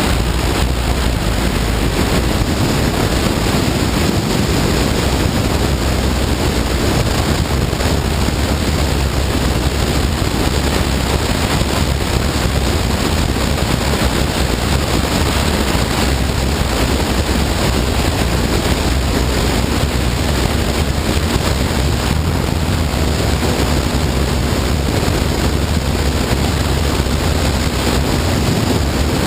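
Steady wind rush over the microphone from a motorcycle at road speed, with the Honda CBR954RR's inline-four engine running underneath.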